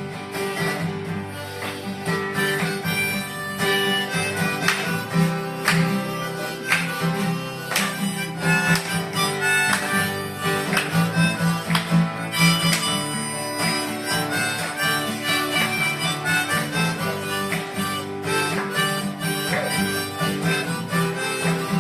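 Acoustic band playing an instrumental break in a country song: a sustained lead melody over steadily strummed guitar.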